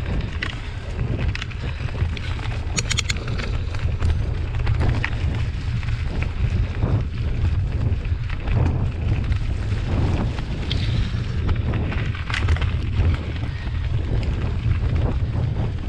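Mountain bike rolling fast down a dirt forest trail: wind buffeting the microphone as a steady low rumble, with the tyres and bike rattling and clicking over the bumps.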